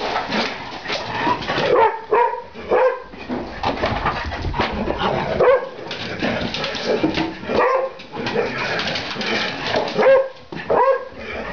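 Two dogs at rough play: short barks and yips that come in clusters several times over, with scuffling noise in between.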